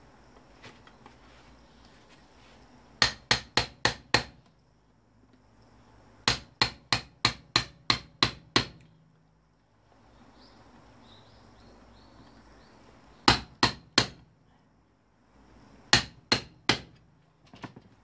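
Hammer blows on metal in quick runs: about five, then about eight, then two groups of three, knocking apart a microwave oven's magnetron to get at its copper and iron.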